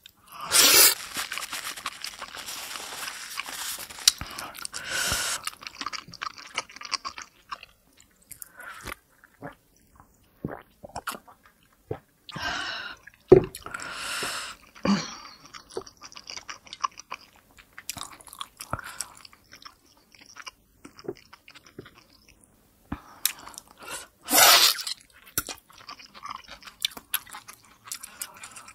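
Close-miked mouth sounds of biting and chewing a large steamed pork momo: wet smacks and sharp clicks, with a few louder bursts about a second in, around halfway and near the end.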